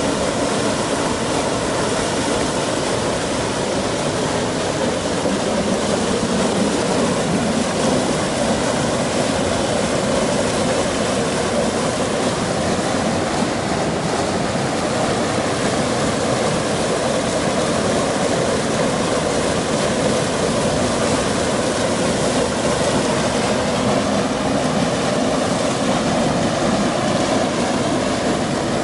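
Small waterfall pouring through a rock chute into a pool, a steady rush of water.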